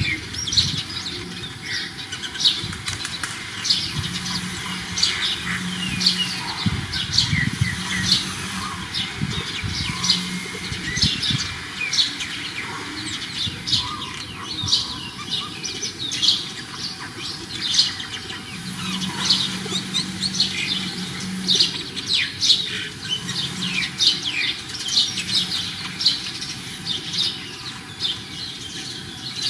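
Small birds chirping busily all through, many short sharp calls overlapping. A low drone comes and goes several times underneath.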